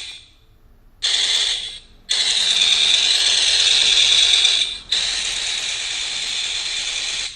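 Electronic machine-gun firing sound effect from a sound-effect card, played through speakers: a short burst about a second in, then two long bursts, the second a little quieter, cutting off suddenly near the end.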